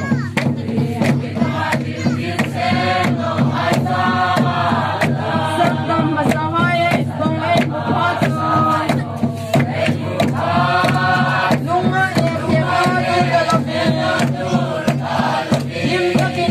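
A mixed group of men and women singing a hymn together, backed by a large drum beaten steadily at about two strokes a second, with hand clapping.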